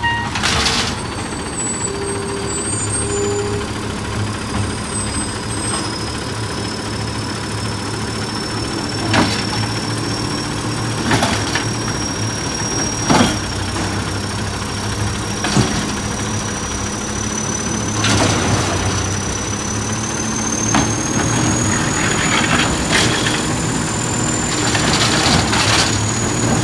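McNeilus automated side-loader garbage truck running at the curb while its robotic arm lifts and empties a recycling cart. Under a steady engine hum there is a thin high whine that slowly rises in pitch, and the cart and arm give several sharp clanks, roughly two seconds apart, through the middle of the cycle.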